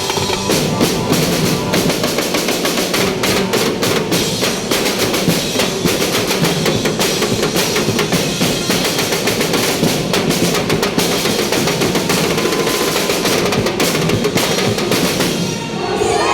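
Drum ensemble of snare and bass drums playing a fast, dense drum cadence with rolls, stopping just before the end.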